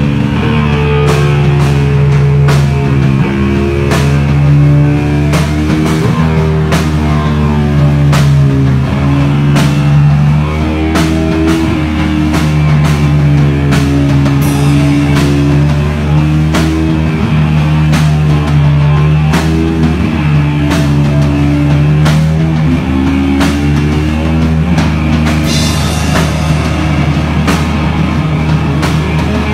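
Hard rock band playing live and loud: distorted electric guitar through Marshall amplifiers and a drum kit, a slow heavy riff with sustained notes shifting every second or two under steady drum and cymbal hits.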